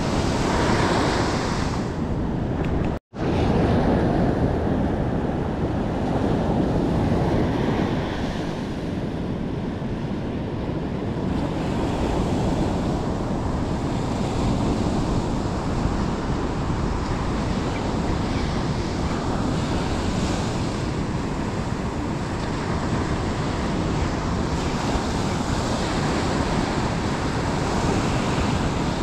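Ocean surf breaking on a sandy beach, with wind buffeting the microphone. The sound cuts out for an instant about three seconds in.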